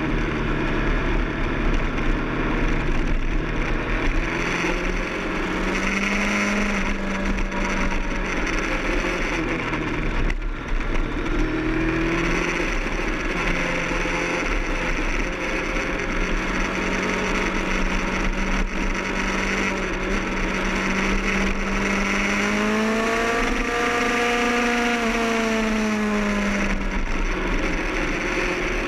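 Kawasaki ZX-10R's inline-four engine running at speed on track, under heavy wind rush on the onboard microphone. Its pitch holds steady for long stretches, then rises and falls once about three quarters of the way through.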